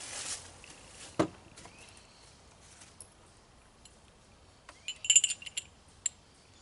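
Metal clicks and clinks of a Knight's Armament SR-25 E2 bolt and bolt carrier being fitted back together by hand: a sharp click about a second in, then a quick cluster of ringing metallic clinks around five seconds in, and one more click just after.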